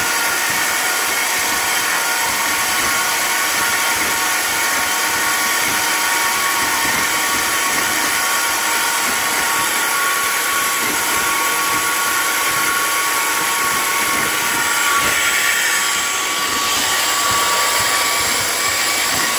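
Electric motors of a robot's ball singulator spinning its roller wheels, a steady whine with a hiss over it.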